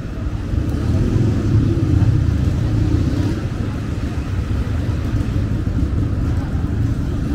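Low rumble of Harley-Davidson motorcycle engines idling and moving slowly in street traffic, swelling from about one to three seconds in.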